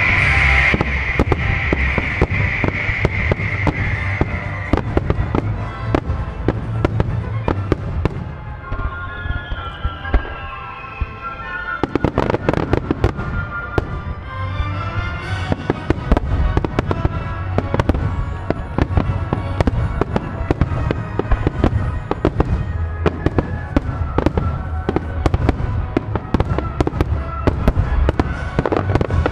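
Aerial fireworks bursting and crackling in rapid succession over loud music played for a fireworks show timed to the music. The bursts thin out for a few seconds about a third of the way in, then come thick again.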